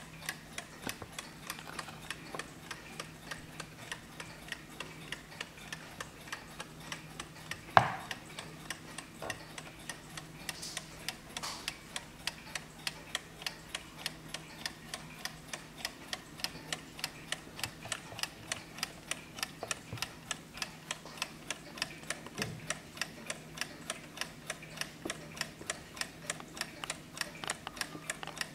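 Antique Junghans mantel clock's movement ticking fast and evenly, running. A single sharper knock about eight seconds in stands out above the ticks.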